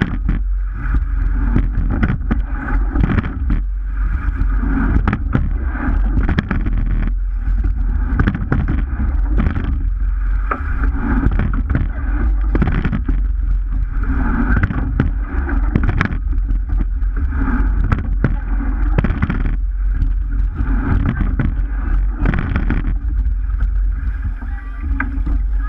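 A sweep-oared rowing shell under way: water rushing and gurgling along the hull, with the oars knocking in their gates and splashing at each stroke, about every two seconds. A steady low rumble of wind buffets the boat-mounted microphone throughout.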